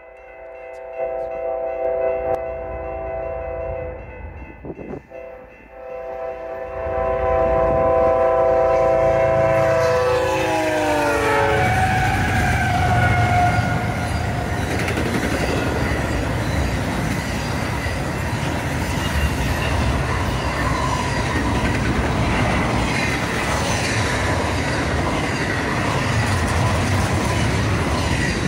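A BNSF intermodal train passes at about 70 mph. The lead locomotive holds a multi-note horn chord, broken briefly about five seconds in, that drops in pitch as it goes by. The loud, steady rush of wheels on rail then runs on.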